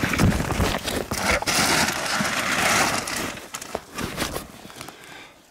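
Rustling and clattering of gear being handled and rummaged through, with many small knocks and a stretch of dense rustling in the middle, dying down near the end.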